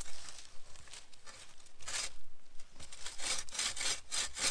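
Bow saw cutting a shallow notch into a birch pole: a handful of short strokes with pauses between them.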